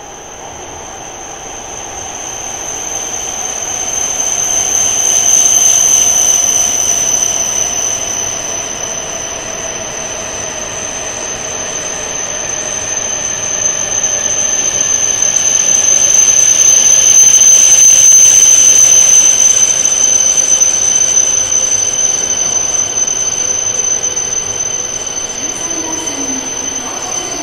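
E6 series Shinkansen train pulling slowly into the platform, with a steady high-pitched squeal and a lower motor whine that falls in pitch as it slows. The sound swells loudest about six seconds in and again around eighteen seconds in.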